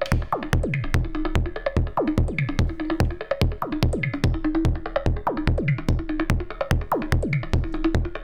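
Synthesized percussion loop from a Make Noise Shared System modular synth: a steady, fast electro beat of sharp clicky hits and drum hits that drop quickly in pitch, over a repeating tone, all patched from oscillators, noise and envelopes rather than drum modules.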